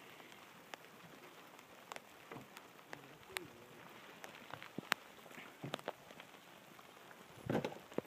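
Light rain: sharp, scattered raindrop taps every second or so, some close to the microphone, over a faint steady patter. A brief louder noise comes near the end.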